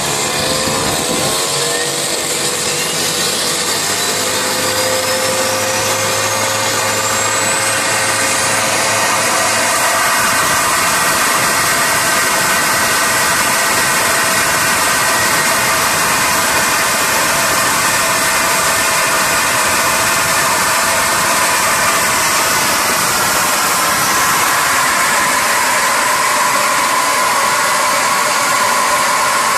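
Homemade turbocharger gas turbine running with a loud, steady combustion roar. The turbo's whine climbs steadily in pitch over the first ten seconds as it spools up, then holds at high speed with several steady tones.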